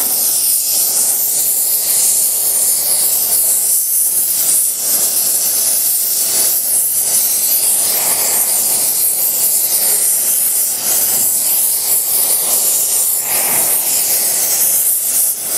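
Gas torch flame hissing steadily as it heats a steel flywheel ring gear, expanding the ring so it will slide onto the flywheel.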